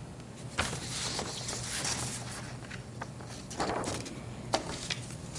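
Sheets of paper rustling and being shuffled on a desk, with a few light taps and knocks as pages are laid down.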